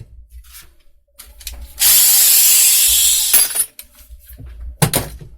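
Cordless drill/driver running for about a second and a half, used to cut a countersink for a screw in the clamp; a few light clicks before it and a couple of sharp knocks near the end.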